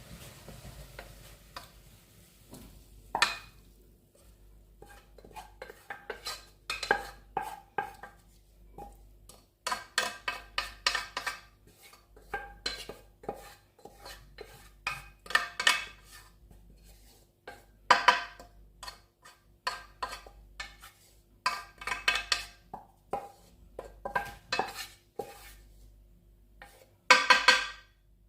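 A metal utensil stirring and scraping in a cooking pot, with irregular clusters of clinks and scrapes; the loudest burst comes near the end.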